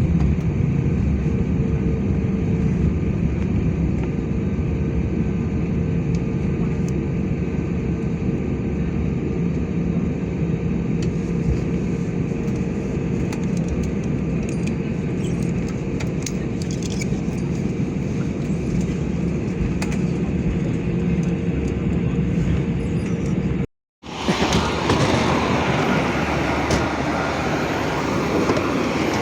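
Steady engine and airflow drone heard inside the cabin of an Airbus A320neo, with a constant low hum under the rush. About 24 s in the sound drops out briefly, and a louder, hissier rush follows.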